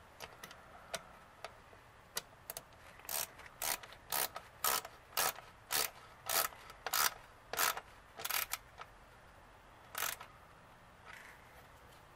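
Hand socket ratchet clicking as it tightens a fastener on the cold air intake. A few scattered clicks come first, then a regular run of about ten ratchet strokes at roughly two a second, and one last stroke near the end.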